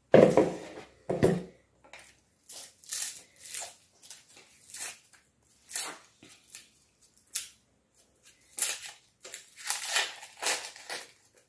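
Food being cut and torn by hand: irregular, crisp crunching and tearing strokes, two heavier ones about a second apart near the start, the rest lighter and scattered.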